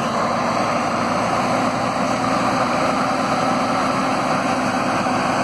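Heavy-haul semi tractor's diesel engine running steadily as the truck pulls a multi-axle oversize-load trailer slowly past, a low drone that holds a constant pitch.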